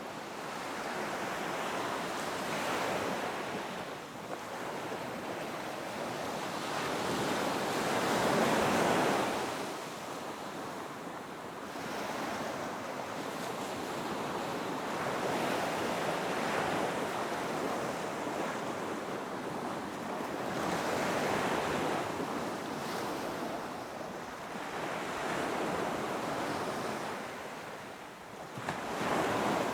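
Ocean surf breaking on a beach: a steady wash of noise that swells and recedes every four to six seconds, the loudest wave about a third of the way in.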